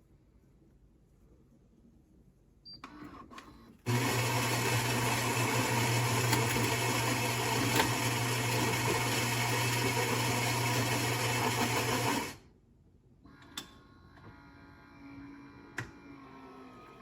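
Philips fully automatic espresso machine running for about eight seconds, a loud steady mechanical whirr with a low hum, starting suddenly after a few small clicks and cutting off abruptly.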